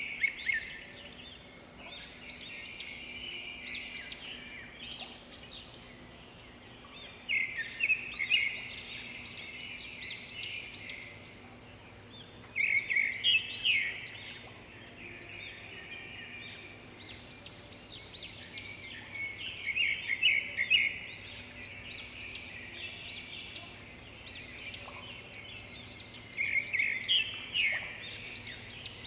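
Small birds chirping and twittering in bursts of quick high notes that come back every few seconds. The sound is too high and quick to be the pigeons' cooing.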